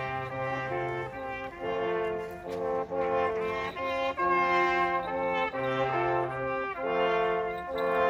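Traditional Austrian hunting music played by brass: slow, held chords that change about every second, with a low bass note coming in and out.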